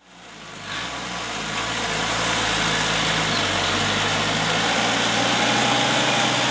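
Small tractor's engine running steadily while it pulls a trailer, fading in over the first second or two.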